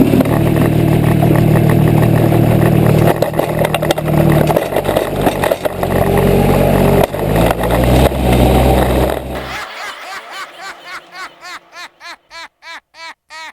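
A loud engine running, with several shifts in speed. It cuts off suddenly about ten seconds in, and an electronic music beat of regular pulses begins.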